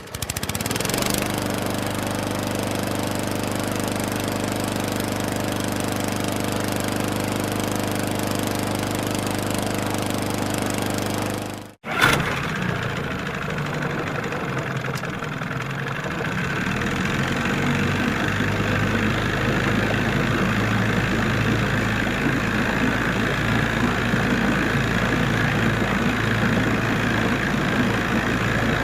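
Boat engine running at a steady, even pitch. About twelve seconds in it cuts out abruptly and a noisier engine sound takes over, growing a little louder a few seconds later.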